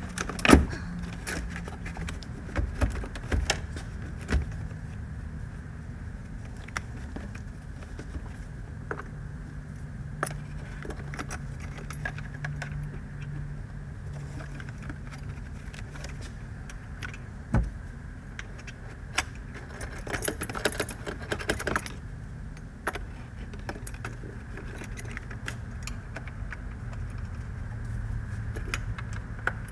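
Metallic clinks, clicks and knocks of hand tools and clamps being worked at a car battery's terminals, with a denser run of clicks about twenty seconds in. A steady low hum sits underneath.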